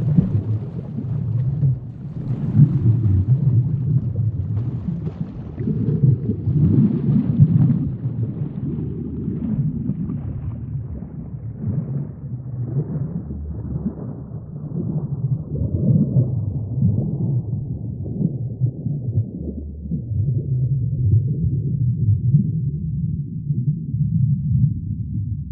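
Deep, low rumble with slowly wavering moaning tones. It starts suddenly and grows steadily more muffled.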